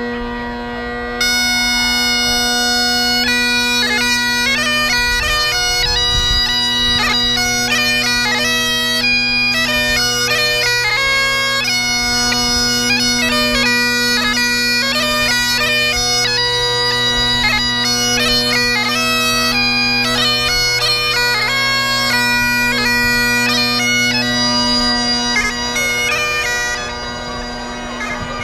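Great Highland bagpipe playing. The steady drones sound throughout, the chanter comes in with a melody about a second in, and near the end the melody stops, leaving the drones sounding.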